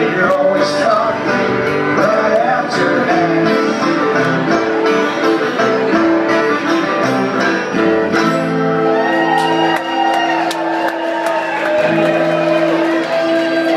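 Live bluegrass band music: a fiddle bowed over a strummed acoustic guitar, playing steadily.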